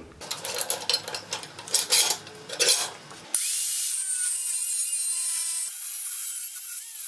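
Angle grinder with a thin cutoff wheel cutting into a bar of O1 tool steel clamped in a vise: a steady, high-pitched grinding hiss that starts abruptly about a third of the way in. Before it, a few irregular knocks and scrapes.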